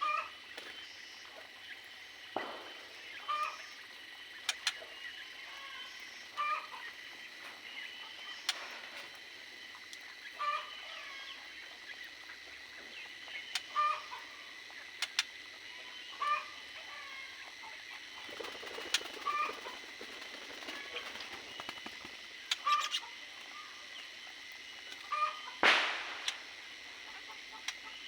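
Domestic fowl clucking: short calls every second or two, with scattered sharp clicks and a louder crack near the end.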